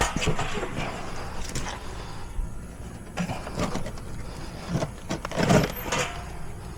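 Irregular scraping and knocking of a glued PVC fitting being shoved and worked along its pipe, with the heaviest push about five and a half seconds in.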